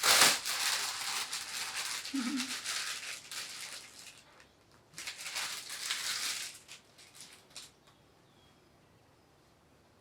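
Crunching, crinkling rustle of something being handled, starting suddenly and lasting about four seconds, then a second bout a second later that stops a little before the end.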